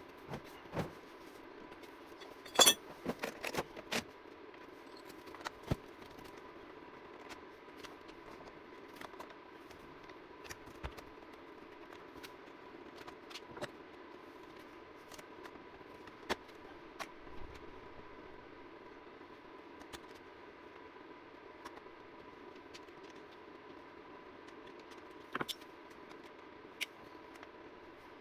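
Scattered clicks and light handling knocks, with a quick cluster of louder ones about three seconds in, over a faint steady hum.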